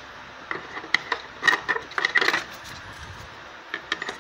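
Plastic battery-compartment cover of a portable CD/cassette player being handled and fitted back onto the case: a series of light clicks and clatters, busiest between about one and a half and two and a half seconds in.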